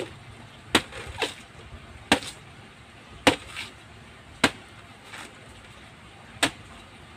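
Machete-type bolo knife chopping a fresh banana trunk into pieces on a wooden board: about six sharp chops at uneven intervals, roughly one a second, with a few fainter strikes between.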